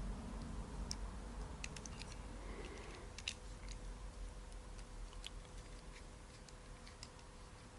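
Scattered small clicks and ticks of a 6 mm button-head screw being turned into a small threaded coupling plate and starting to grab, with a couple of sharper clicks. The screw is only being snugged, not overtightened, since the part is delicate enough to snap.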